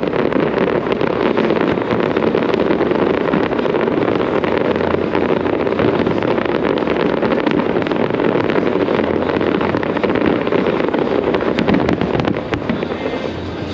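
Dense fireworks barrage: a continuous rumble of overlapping bursts with many sharp cracks and crackles throughout, easing a little near the end.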